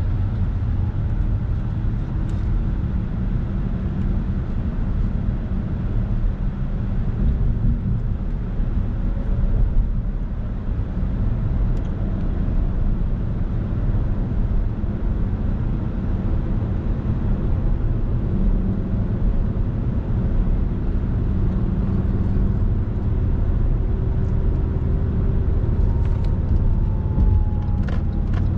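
Steady road and tyre noise heard inside the cabin of a moving car at highway speed: a low, even rumble, with a few faint clicks near the end.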